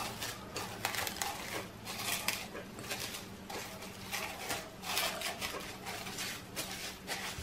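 Thin plastic sheet crinkling and rustling irregularly as fingers press it into a drinking glass to line it.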